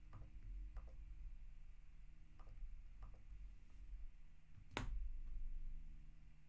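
Hard plastic card case being handled, with a few light clicks, then one sharp click about five seconds in as it is set down on a display stand. A faint steady hum underneath.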